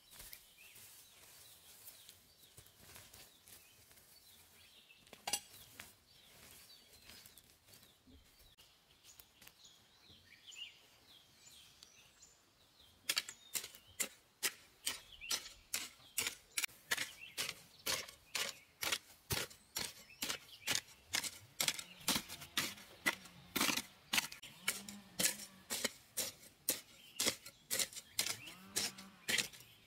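A metal hoe chopping into dry, loose soil, striking about twice a second in a steady rhythm, starting about 13 seconds in. Before that, quieter scratching and rustling of hands working the soil and weeds.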